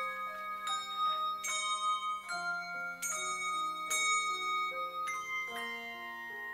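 A handbell choir ringing a piece in chords. Chords are struck about once a second, with the bell tones ringing on and overlapping between strikes.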